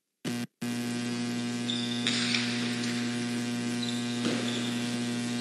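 Steady electrical mains hum with a buzzy stack of overtones. It cuts in abruptly after a moment of silence and drops out for an instant just after.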